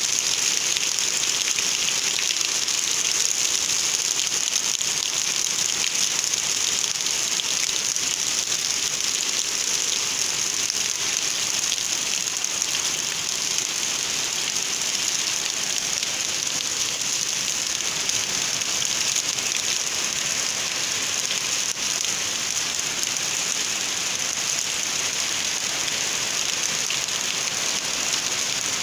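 Steady heavy rain falling on puddled ground and tree foliage: a dense, even hiss that holds without a break.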